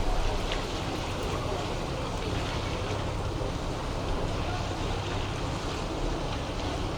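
Steady seaside town ambience: a continuous low rumble with a wash of surf or boat noise, and faint people's voices in the background.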